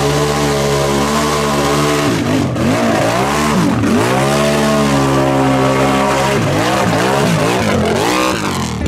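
Mud-racing ATV engine held at high revs as the four-wheeler churns through a deep mud hole on oversized paddle tires; the revs sag and climb back several times as the wheels bog and break free.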